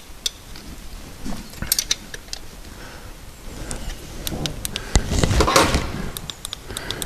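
Spanner clicking and scraping on metal as the pinch bolt clamping a 123TUNE distributor is tightened: a scatter of sharp metallic clicks, with a louder stretch of scraping and rustling about five seconds in.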